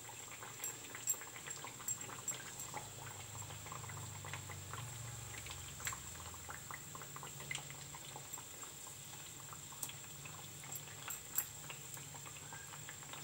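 Semolina biscuits deep-frying in oil on low heat: quiet, steady sizzling with scattered crackles and pops, over a low hum.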